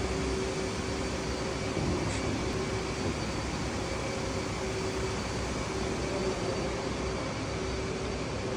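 Steady hum and hiss of air conditioning, with a few faint steady tones running through it.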